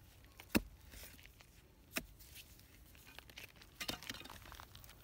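A metal blade digging into hard, cracked dry mud: two sharp knocks about a second and a half apart, then a few quicker clicks, with faint crumbling and scraping of broken clods between them.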